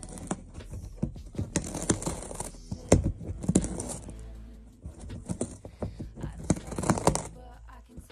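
A cat gnawing and biting at an edge, giving irregular crunching clicks and scrapes, with a few louder cracks.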